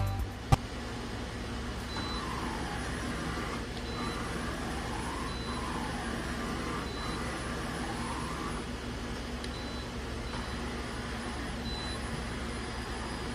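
Okuma Genos M460-VE vertical machining center running with a steady mechanical hum, a sharp click about half a second in, and whines that glide down and back up in pitch several times. Faint short high beeps repeat about once a second.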